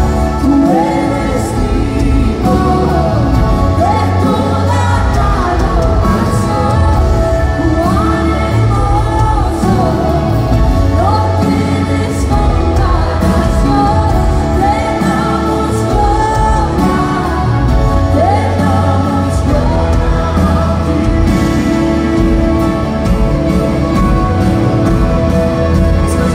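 Live Christian worship band playing, with a female lead singer singing a melody in Spanish over the full band. It is heard from among the audience in a large arena.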